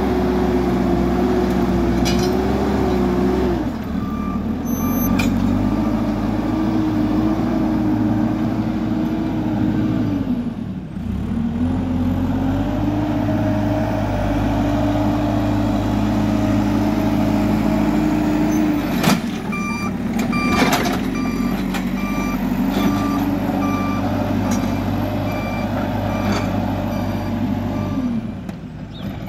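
JCB 3CX backhoe loader's diesel engine working, its revs rising and dropping several times as it loads and drives, with its reversing alarm beeping at a steady pace through much of it. Two sharp clanks come about two-thirds of the way through.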